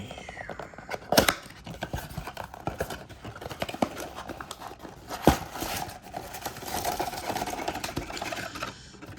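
Handling of a cardboard trading-card blaster box and its foil card packs: crinkling and rustling of packaging with scattered clicks and two sharp knocks, about a second in and past the middle.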